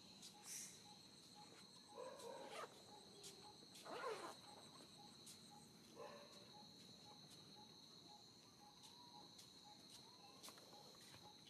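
Insects trilling steadily on one high tone, with a fainter higher band above it. A few short, faint calls come about two, four and six seconds in.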